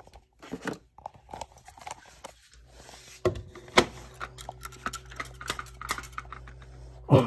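Scattered plastic clicks and knocks of a smoke alarm being handled to get its battery out. A low steady hum comes in about three seconds in.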